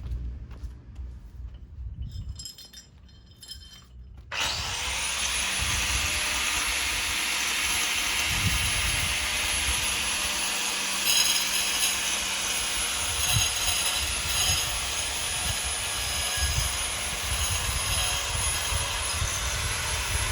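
A power tool switches on about four seconds in and runs steadily with a high whine, sawing or cutting. Before it come a few light clicks and knocks.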